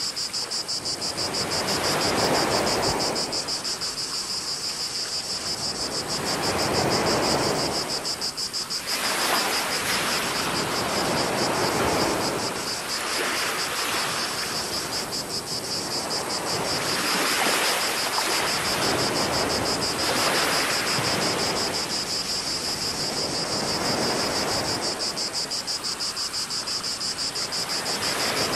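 Small waves washing in slow swells every few seconds over a steady, shrill chorus of cicadas.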